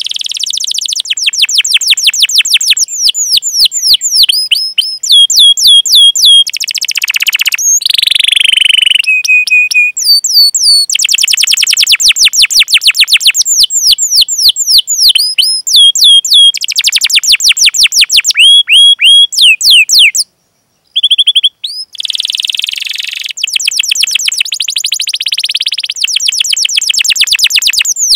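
Domestic canary singing a fast, tight song of rapidly repeated high chirps and rolling trills, with a couple of brief pauses.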